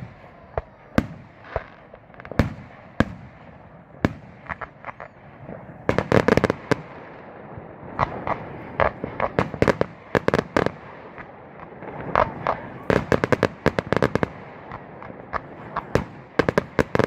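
Fireworks going off: scattered single bangs at first, then, from about six seconds in, dense runs of rapid crackling reports.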